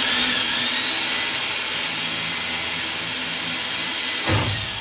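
Cordless drill running at speed, drilling a hole through the car's bare sheet-metal body panel with a steady high whine. A thump a little after four seconds as it stops, then the whine dies away.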